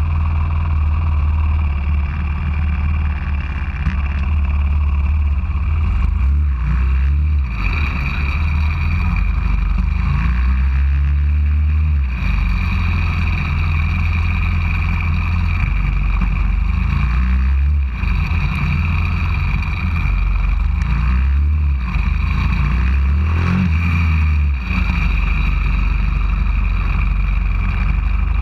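190cc pit bike's single-cylinder four-stroke engine running at low speed as the bike rolls slowly, engine speed rising and falling a few times as the throttle is opened and closed, heard through a camera mounted on the bike.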